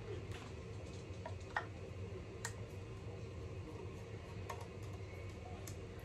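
A few faint, scattered clicks of a screwdriver working the two screws out of a coffee grinder's switch mounting, over a faint steady hum.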